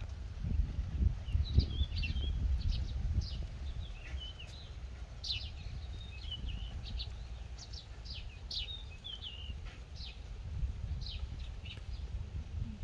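Small birds chirping in quick, short high notes, over a low rumbling noise that is loudest in the first few seconds.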